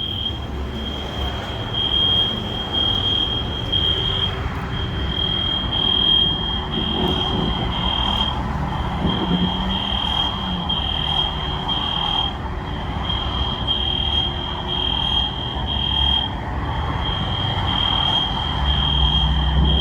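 Edwards fire alarm sounding: a high-pitched electronic tone repeating in short pulses, with a brief break about every four seconds, over a low rumble.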